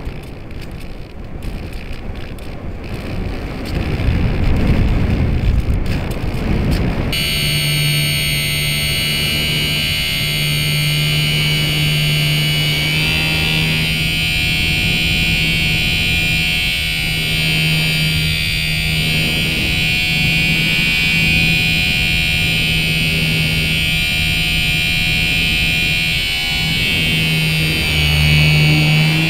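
Air rushing past the onboard camera of an RC glider in flight. About seven seconds in, a small electric motor starts and runs with a steady whine at constant speed.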